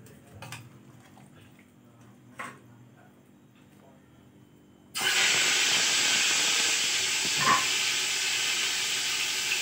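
Marinated chicken hitting hot oil in a pot: after a quiet start with a faint click, a loud sizzle breaks out suddenly about five seconds in and carries on steadily, with one brief knock a couple of seconds later.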